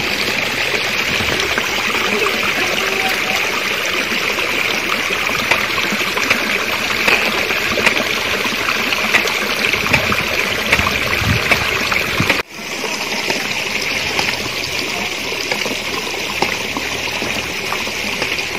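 Steady running water of a shallow stream flowing between rocks, with a sudden brief break about twelve seconds in.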